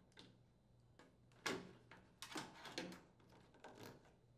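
Faint handling sounds of a plastic drain hose retainer being taken off a washing machine's metal rear panel and the corrugated drain hose shifting: a few short knocks and rustles, about a second and a half in, a cluster around two and a half seconds, and again near the end.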